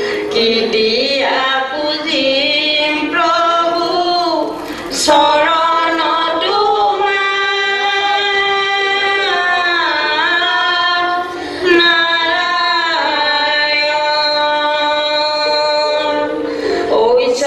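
A woman singing a song, with long held notes that glide up and down in pitch.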